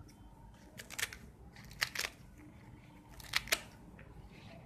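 Adulsa (Malabar nut) leaves being cut: a handful of short, sharp cutting clicks, mostly in close pairs, about a second, two seconds and three and a half seconds in.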